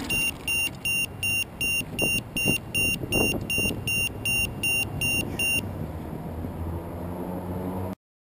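Electronic buzzer on a landed quadcopter beeping at a steady pace of about three short, high beeps a second, with the motors stopped. The beeping ends about five and a half seconds in.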